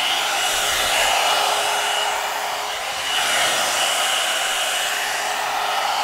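A cheap one-step hair dryer brush (a knock-off of the Revlon volumizer) blowing steadily: a rush of air with a thin high motor whine over it. Its loudness dips and swells slightly as the brush is drawn through the hair.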